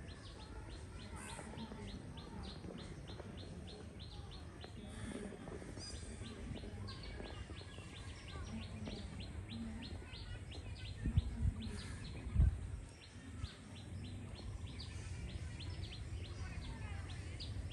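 A bird calling in a fast, even series of short chirps, about three a second, over a faint outdoor background. A couple of brief low bumps come about two-thirds of the way through.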